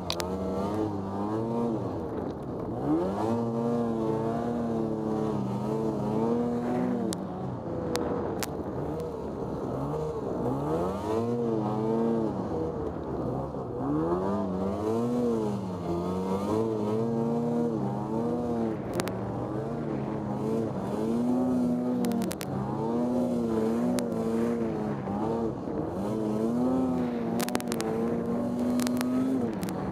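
Lynx Commander snowmobile engine running under constantly changing throttle while plowing through deep powder, its pitch rising and falling every second or two. A few sharp ticks come through now and then.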